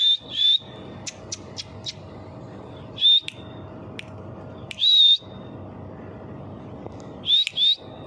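Short, high whistled notes, each under half a second with a slight upward bend, six in all: a pair at the start, single notes about three and five seconds in, and another pair near the end. Faint ticks fall between them.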